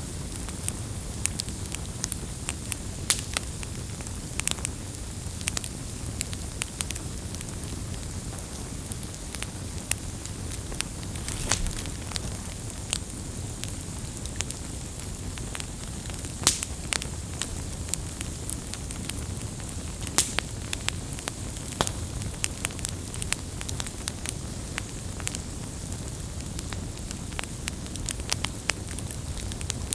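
Wood campfire burning: a steady low rush of flame with frequent irregular sharp crackles and pops.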